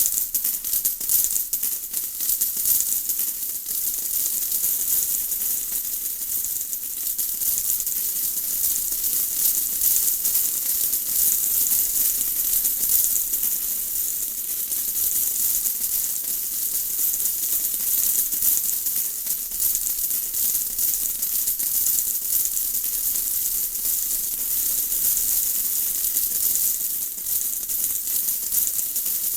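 Steady rain: a dense, even patter of many small drops, brightest in the high range, with no let-up.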